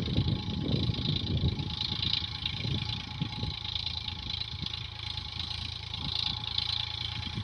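Diesel farm tractor engine running steadily as it pulls a plough through a field.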